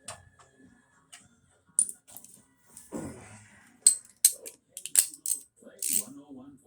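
Small metal driver bits clinking and clicking as they are picked out and handled, with a run of sharp metallic clicks in the second half.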